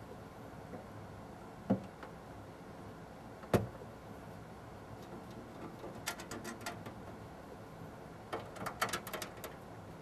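Metal side panel of a desktop PC tower being slid back onto the case, rattling and clicking into place. A sharp knock comes a little after three seconds in, with two runs of small metallic clicks, one midway and one near the end.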